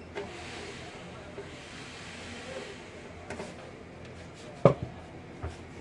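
Clicks and knocks of computer case parts being handled, with one loud knock a little before the end.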